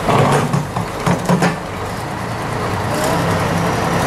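Diesel engines of heavy machinery, a wheel loader and an excavator, running in the mud. There are a few short sharp sounds in the first second and a half, and the engine note grows louder and steadier about three seconds in.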